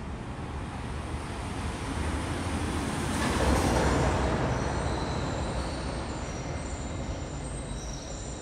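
Vehicle rumble that swells as a vehicle passes about three seconds in, then settles back. Short high squeaky tones come and go in the second half.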